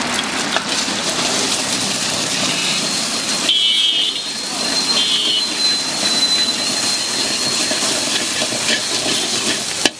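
Egg frying in hot oil in an iron wok: a steady sizzling hiss, with the ladle clinking and scraping against the wok as the egg is scrambled.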